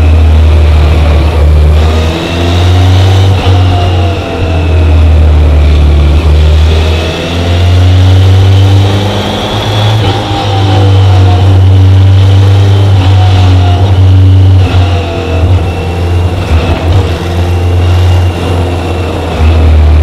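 BMW K1100LT's inline four-cylinder engine running under way, its pitch rising and falling several times with brief dips in loudness as it pulls and eases off, over a steady low rumble.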